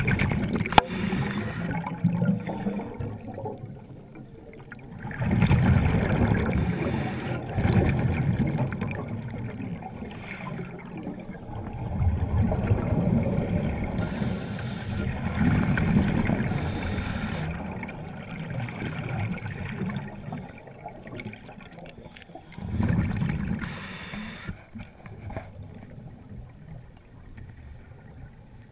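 Water gurgling and rushing underwater, swelling into surges a couple of seconds long every few seconds.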